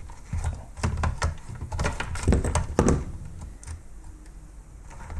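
Knocks and clicks of a robot vacuum's plastic parts being handled and pulled apart during disassembly: a series of sharp knocks in the first three seconds, then quieter handling noise.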